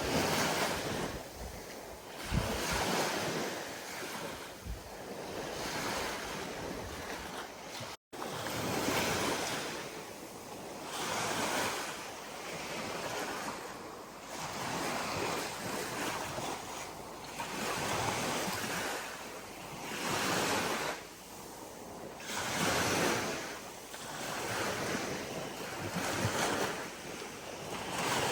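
Ocean waves breaking and washing up the shore, each surge rising and falling every two to three seconds. The sound cuts out for an instant about eight seconds in.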